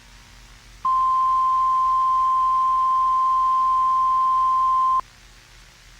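A single steady electronic beep tone breaks into a TV broadcast. It starts about a second in, holds for about four seconds and cuts off suddenly, over faint hiss.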